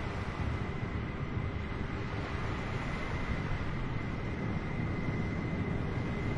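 Steady airliner cabin noise before taxi: a low, even rush of air with a faint steady high whine running through it.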